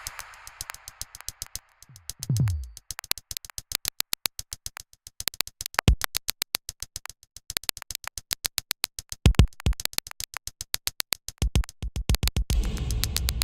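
Glitchy synthesized electronic sounds from the Moebius Lab music app: rapid clicking pulses, a low tone that drops in pitch about two seconds in, a few heavier low hits, and a dense, louder rumbling texture near the end.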